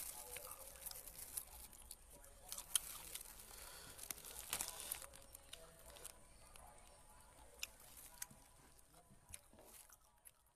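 Thin plastic bag crinkling and rustling in irregular bursts as food is picked out of it by hand, with small sharp clicks; it is busiest in the first half and dies away near the end.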